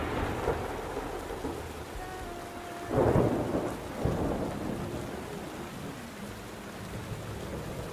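Rain falling steadily, with two louder rushes of noise, one at the start and one about three seconds in.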